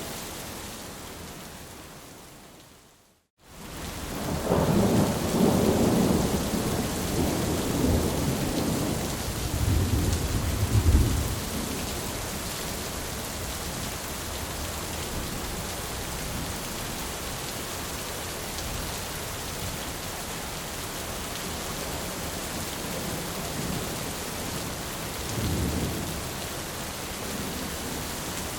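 Heavy rain with thunder. The rain fades out to a moment of silence about three seconds in, then returns with a long rolling rumble of thunder lasting several seconds. Steady rain follows, with a shorter thunder rumble near the end.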